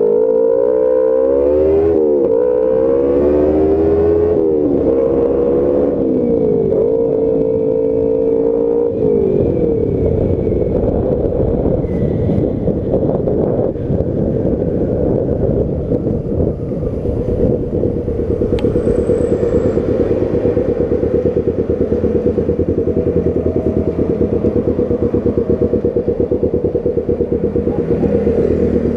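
Kawasaki Ninja 250 with an aftermarket Hedon exhaust, heard from on board. For about the first nine seconds the engine pulls, its pitch rising and dropping several times as the revs climb and fall. After that it settles into a rapid, pulsing low burble at low revs.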